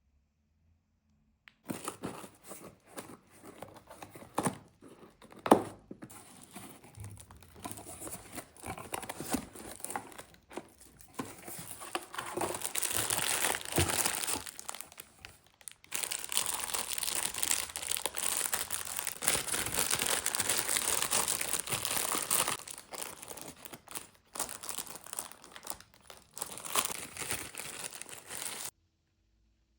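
Packaging being crinkled and torn open by hand during an unboxing, with many small crackles. It starts about one and a half seconds in, is busiest in the middle, and cuts off shortly before the end.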